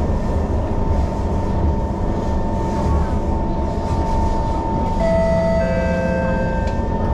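Singapore MRT train running along the track, heard from inside the carriage: a steady low rumble with a constant high whine. About five seconds in, further whining tones join.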